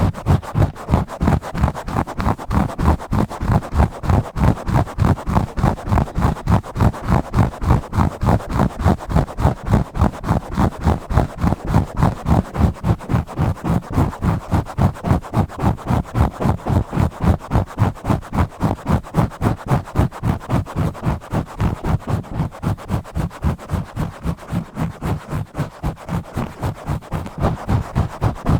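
Fast, rough scratching and rubbing directly on a bare microphone, in even strokes at about three a second, heavy in the low end.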